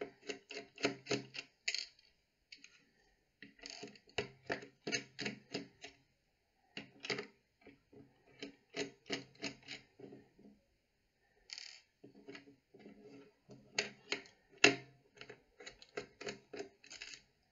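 Small screws being unscrewed with a precision screwdriver from a plastic charger body: several runs of quick small clicks, with short pauses between them.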